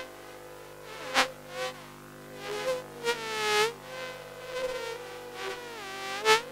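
Layered electric-toothbrush buzzing, several drones at different pitches that slide up and down, made to sound like a swarm of bees. A sharp click about a second in and another near the end.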